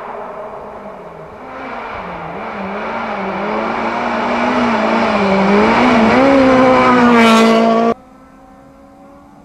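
Honda Civic Type-R rally car's four-cylinder engine at full throttle, approaching on a gravel stage. Its note rises and dips with throttle and gear changes and grows louder until the car is close, about seven seconds in. The sound then cuts off abruptly, leaving the faint sound of an engine far away.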